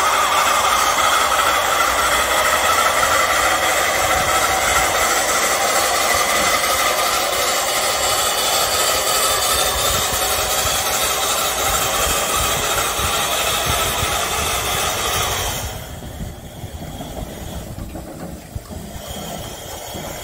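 Steam locomotive venting steam with a loud, steady hiss that cuts off suddenly about three-quarters of the way through.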